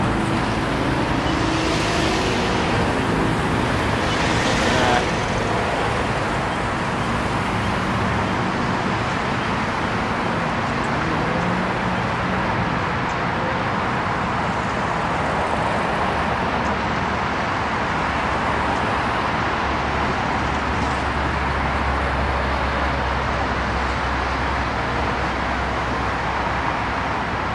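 Road traffic: cars driving past on a city street in a steady wash of tyre and engine noise. Two vehicles pass louder and closer in the first five seconds, and a low engine rumble sets in about twenty seconds in.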